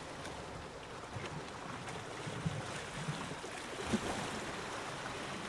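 Soft, steady rushing ambient noise with a few faint low bumps.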